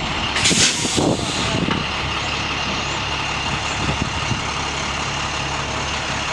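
A school bus's diesel engine idles steadily, with a short burst of air hiss about half a second in.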